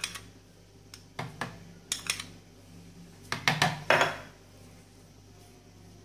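A spoon knocking and scraping against a plastic blender jug and a plastic tub as granulated sugar is spooned in: several sharp taps in small clusters, with a short scrape about four seconds in.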